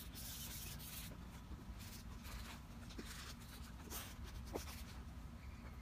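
Faint scraping, rustling and light knocks of hands handling an air rifle and a sponge block on a sheet, over a low steady rumble.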